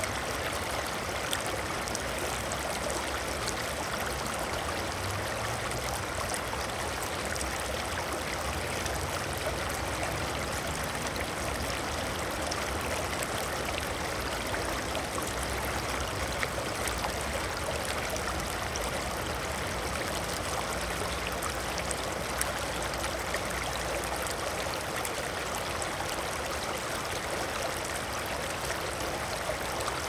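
Running water flowing steadily, an even rushing and bubbling with no pauses or changes.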